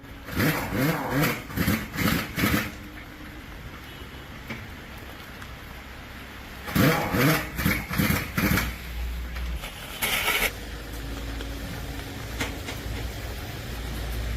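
A person's voice speaking in short phrases, in two spells, with a low steady rumble underneath in the second half.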